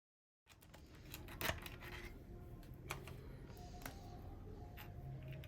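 Dead silence for about half a second, then faint light clicks and taps of hand tools and small parts being handled during an engine teardown, over a low steady hum. The sharpest tap comes about a second and a half in.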